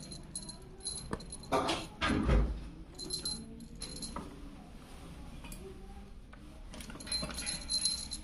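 Small jingle bell on a feather wand toy tinkling in short bursts as kittens bat at it, with a few louder thumps about two seconds in.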